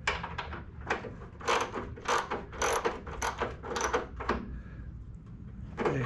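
Socket ratchet wrench clicking in a run of short strokes, roughly two a second, as a tight, rust-seized engine shroud bolt is worked back and forth to free it. The strokes stop a little past four seconds in.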